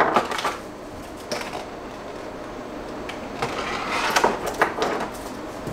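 Packaging rustling with scattered light clicks and knocks as a box is rummaged through by hand, with a cluster of handling knocks near the end.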